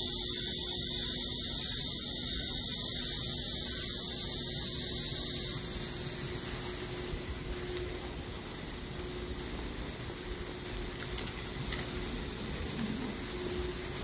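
Park fountain spray falling onto a pond: a steady, hissing rush of water. About five and a half seconds in, it drops away to quieter outdoor noise with a faint steady hum and a few faint ticks.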